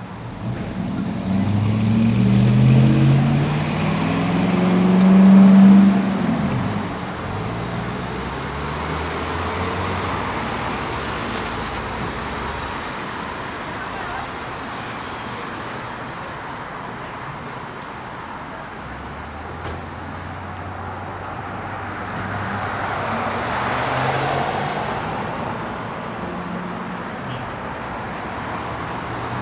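City street traffic: a car accelerates past, its engine rising in pitch over the first six seconds. Then a steady traffic hum, with another car passing about three quarters of the way through.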